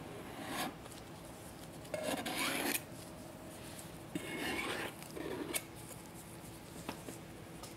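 Kitchen knife scraping along the rim of a metal pastry ring, cutting away overhanging pie dough in about four rasping strokes.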